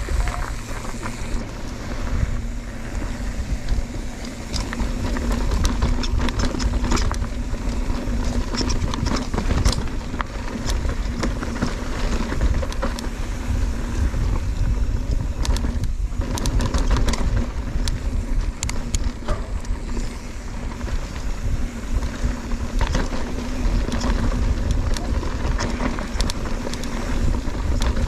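Mountain bike descending a rocky trail at speed: wind buffeting the ride-mounted microphone over the tyres rolling and rattling on rock and gravel, with many small clicks and knocks and a faint steady hum. It dips briefly about halfway through.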